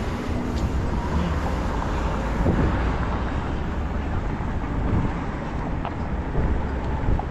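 Downtown street noise: a steady low rumble of traffic, with a few light knocks scattered through it.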